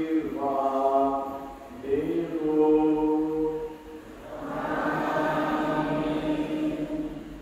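Voices singing a slow liturgical chant in long held notes. The pitch steps up about two seconds in, and the chant fades near the end.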